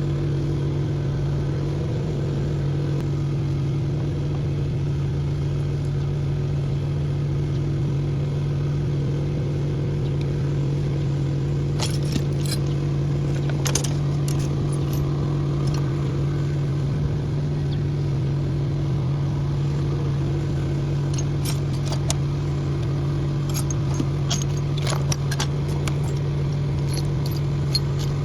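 An engine running at a steady idle, its low tone unchanged throughout. Scattered light metallic clinks come about twelve seconds in and again in the last few seconds.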